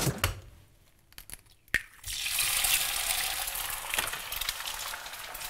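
A louder sound breaks off at the start, then near silence, a single sharp click, and from about two seconds in an egg frying in a pan: a steady sizzling hiss with small crackles.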